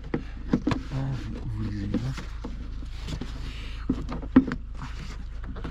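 Scattered clicks and light knocks of hand tools and metal parts being handled, over a steady low hum, with some quiet muttering early on.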